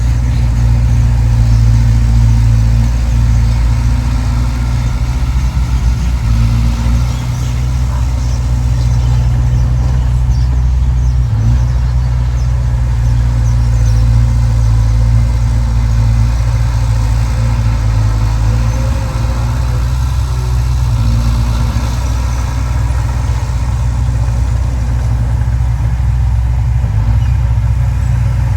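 Heavy earthmoving machine's diesel engine running steadily with a deep, loud drone.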